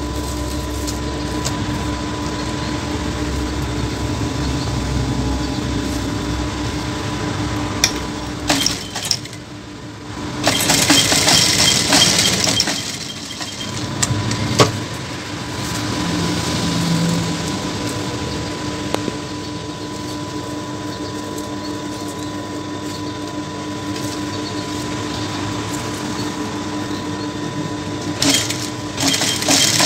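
JACK industrial lockstitch sewing machine stitching darts in blouse fabric: a steady motor hum, with louder runs of stitching about ten seconds in and again near the end.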